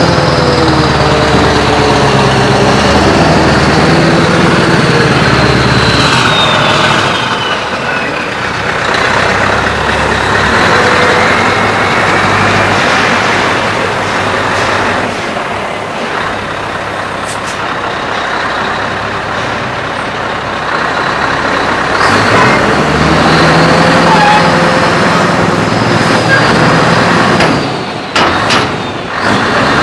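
Scania R560 truck's 16-litre V8 running through an open, straight-piped exhaust as the truck manoeuvres. The engine is loud up close for the first several seconds, weaker through the middle, and loud again later. Near the end the engine drops and there are a few short air-brake hisses as the truck stops.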